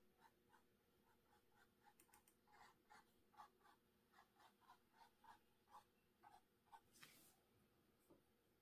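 Faint, quick strokes of a filbert paintbrush dabbing paint onto a canvas print, about three soft strokes a second, then one longer brushing sound near the end.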